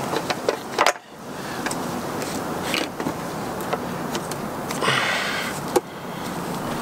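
Light clicks and knocks as a rigid solar panel on plastic corner brackets is handled and set down on a van's metal roof, over steady outdoor background noise, with a brief hiss about five seconds in.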